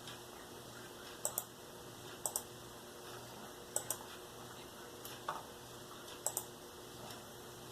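Sharp little clicks, mostly in quick pairs, coming about once every second or so, five times, over a faint steady hum.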